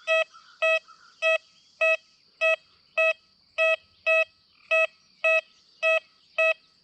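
XP Deus 2 metal detector in its Deep High Conductors program, giving a short mid-pitched beep about every 0.6 s, around a dozen in all, each one a target signal as the coil passes back and forth over the target.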